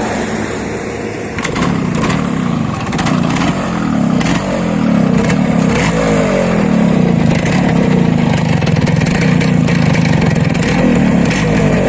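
Yamaha RXZ's single-cylinder two-stroke engine running through a stock-pattern CET silencer, its throttle blipped so the pitch rises and falls again and again.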